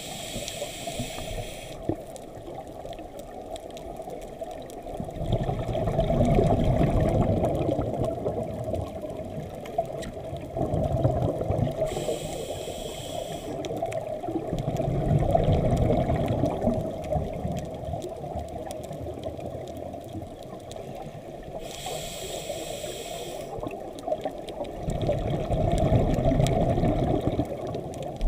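A scuba diver breathing through a regulator underwater: three breaths, each a short hiss of inhalation followed a few seconds later by a longer, louder bubbling rush of exhaled air.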